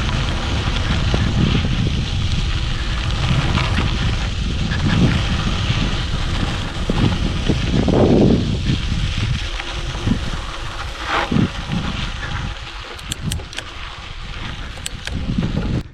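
Wind buffeting the microphone: a loud, uneven low rumble, swelling about halfway through, with a few faint clicks near the end.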